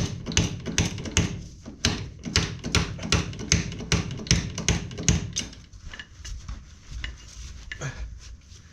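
Bottle jack being pumped to push a UTV tire's bead off the rim: rapid clicking and knocking, about three or four a second, that stops about five and a half seconds in, followed by a few fainter knocks.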